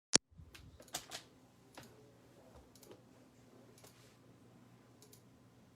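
A sharp click right at the start, then a handful of light, irregular clicks and taps, with a faint steady hum underneath.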